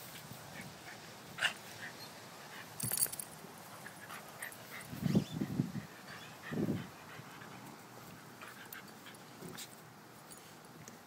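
An adult dog and a puppy play-fighting, making scattered short dog noises: a brief high yip about a second and a half in, and a cluster of louder low-pitched sounds about five to seven seconds in.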